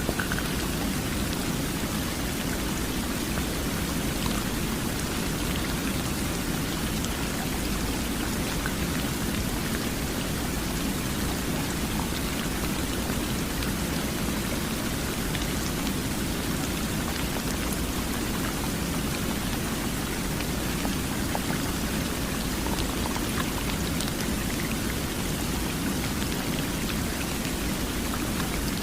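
Steady rain falling in an even, unbroken wash, with scattered light drop ticks, shaped as pink noise for sleep.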